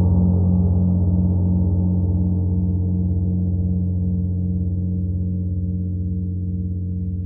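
Koan Gong Lemurian gong ringing on after a soft-mallet stroke: a deep, sustained hum that slowly fades as its higher overtones die away, with a slow, steady pulsing throb like a heartbeat.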